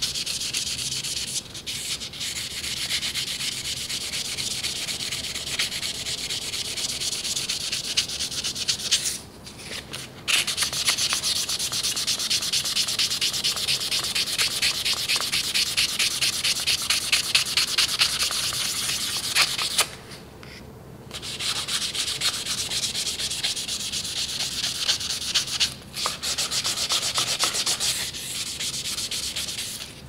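Sandpaper rubbed back and forth over the steel face of a Victorinox chef's knife blade in quick, even strokes, polishing out scratches left by careless whetstone sharpening. The rubbing pauses for about a second twice, about a third and two thirds of the way through.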